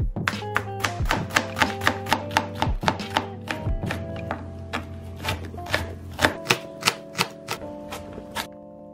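A kitchen knife chopping food on a cutting board in quick, sharp, slightly irregular strokes, about three to four a second, over background music.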